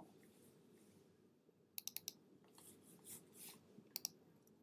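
Faint, sharp clicks from operating a computer: a quick run of about four clicks about two seconds in and a pair near the end, over low room noise.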